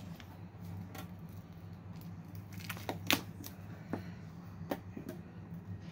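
Crinkling and sharp little clicks of a foil trading-card booster pack being handled and opened, the sharpest snap just after three seconds in, over a steady low electrical hum.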